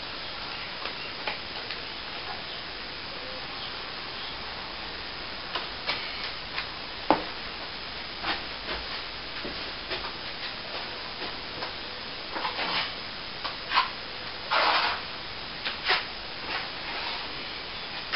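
Scattered short scrapes and taps from hand tools working plaster, over a steady hiss, with a longer scrape about fourteen and a half seconds in.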